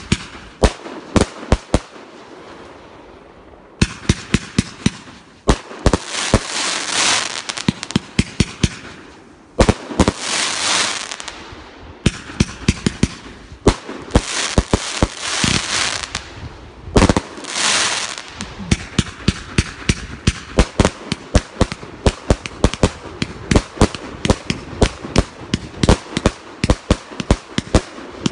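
Men Shun 'The Guv'nor' 1.3G compound firework cake firing: a dense string of sharp shots and bursts, with stretches of crackling a second or two long. There is a short lull early on, and after about twenty seconds the shots come evenly, several a second.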